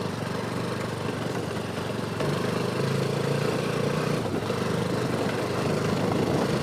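Motorcycle engine running steadily, getting a little louder about two seconds in.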